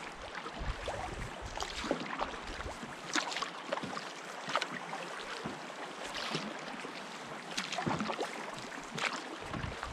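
River water rushing and splashing against a canoe's hull as it runs through a stretch of light rapids. Short, irregular splashes come over a steady hiss.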